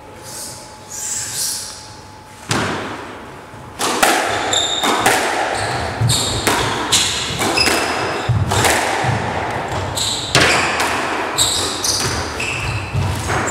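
Squash rally: the ball cracks off rackets and thuds against the court walls, with shoes squeaking on the wooden floor. After a sparse start, with a first sharp hit about two and a half seconds in, the hits come fast and steadily from about four seconds on.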